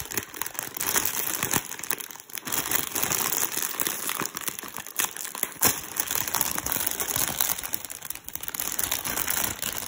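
Large plastic snack bag crinkling and rustling as gloved hands pull its sealed top apart, with one sharp snap a little past halfway.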